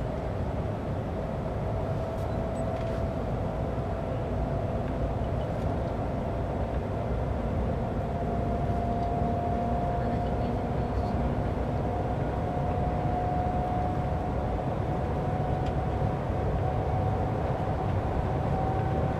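Shanghai Maglev train accelerating at about 200 to 230 km/h, heard from inside the carriage: a steady rumble and rushing noise with a whine that slowly rises in pitch as it speeds up.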